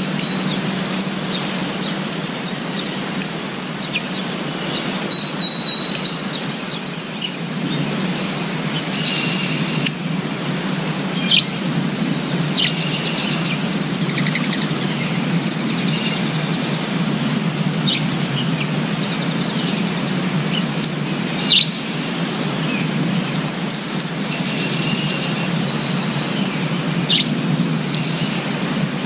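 Wild birds calling and chirping over a steady background hiss. There are scattered short high chirps, and the loudest is a rapid run of high notes about five to seven seconds in.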